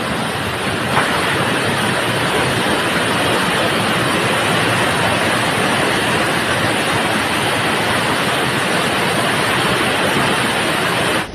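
Floodwater rushing in a torrent down a street, a loud, steady rush of water that cuts off suddenly at the very end.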